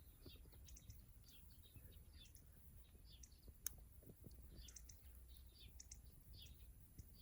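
Faint, repeated short chirps of small birds, with one sharp click about three and a half seconds in.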